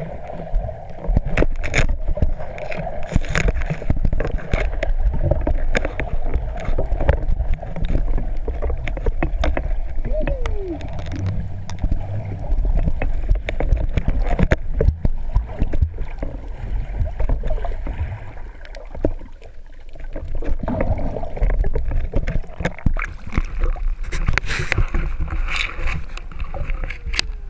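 Muffled underwater water noise heard through a GoPro Hero 3's waterproof housing as a freediver swims and handles a speargun, with many sharp clicks and knocks throughout. Near the end the camera breaks the surface into splashing water.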